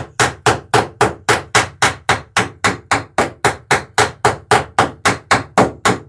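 Rapid, steady hammer blows, about four a second, each ringing briefly: a hammer peening rivets on the planking strakes of a wooden dory.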